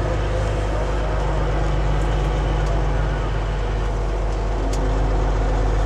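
Semi truck's diesel engine running steadily, heard from inside the cab: a steady low drone with road noise.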